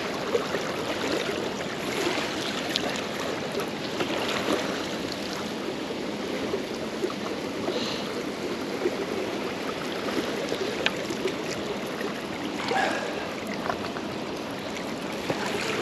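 Fast-flowing, bouldery river water rushing steadily.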